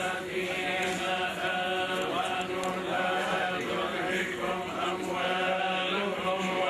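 Men's voices chanting a religious funeral prayer over a steady held low tone.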